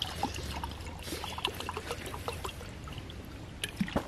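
Water poured from a plastic bottle into a titanium mug, splashing and trickling, with a couple of knocks near the end.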